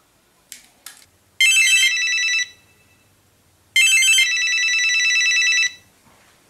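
Cordless DECT home phone ringing with an electronic warbling ring: two rings, the first about a second long and the second about two, after two short clicks.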